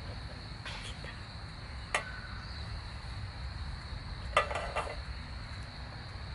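A metal frying pan clatters briefly as it is set down on a portable gas stove about four seconds in, after a couple of lighter knocks. A steady high insect chirring runs underneath.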